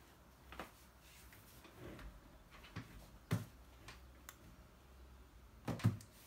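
A few scattered light knocks and clicks from things handled at a desk, the loudest about three seconds in, with a quick double knock near the end.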